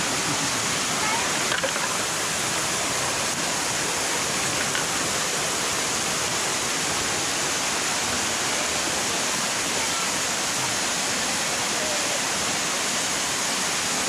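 Waterfall cascading over rock: a steady, even rush of falling water that does not change.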